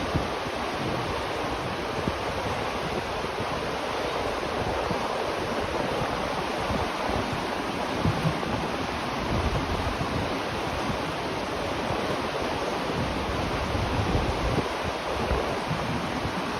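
River water flowing steadily, an even rushing noise, with irregular low rumbles underneath.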